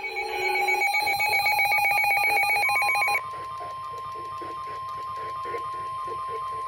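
Emergency Alert System tones. A loud, rapidly pulsing buzzy electronic tone cuts off about three seconds in. A single steady alert tone has already begun just before that cut and holds on to the end: the attention signal that comes before the next warning.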